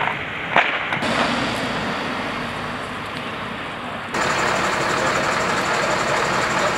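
Fire trucks running at a fire scene, a steady engine hum with a sharp click just over half a second in. About four seconds in the sound turns louder and a steady high whine joins it.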